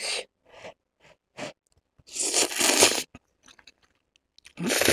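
Close-mic eating of spicy instant noodles: a few short wet mouth clicks, then a long noisy slurp of noodles about two seconds in, and another slurp near the end.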